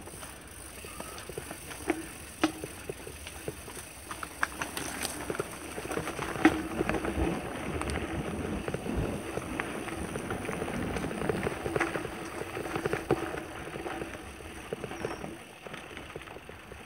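Mountain bike rolling over a rough dirt trail: tyre noise on the dirt with frequent sharp clicks and rattles from the bike, louder through the middle stretch.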